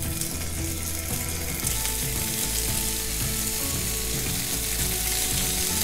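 Spice-marinated smelt shallow-frying in hot oil on a dosa griddle: a steady sizzle that grows a little louder after about two seconds.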